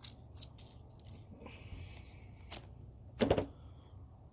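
Knife work on a cutting board: a series of light clicks and knocks, with a louder single knock about three seconds in.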